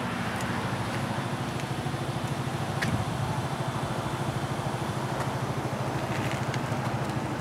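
A motor running steadily with a low, fast-pulsing drone, like an idling engine.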